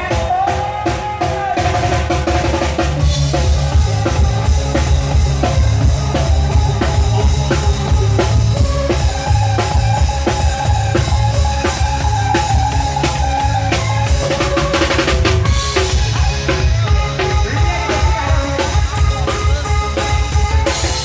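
Thai khrueang hae procession band playing, a drum kit with bass drum and snare hitting a fast, steady beat under a sustained melody line.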